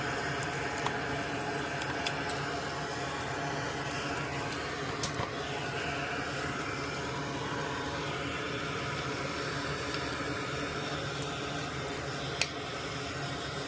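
Steady mechanical hum like a fan or ventilation running in a small room, with a few faint light clicks and taps from the circuit board being handled.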